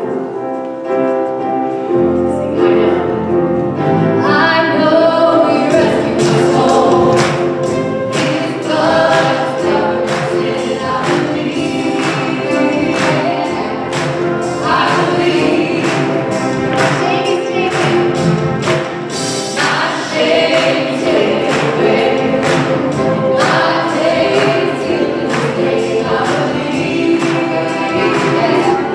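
Church worship band playing a praise song: a group of singers over keyboards, electric guitar, saxophone and drums. Held keyboard chords open it, and a steady drum beat comes in about two seconds in.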